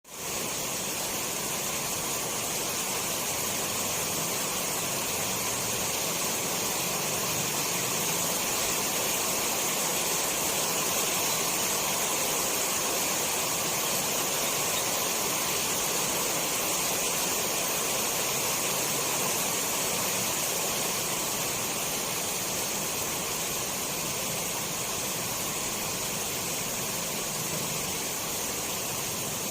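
Steady rainfall, an even hiss that is strongest in the high range and holds level throughout.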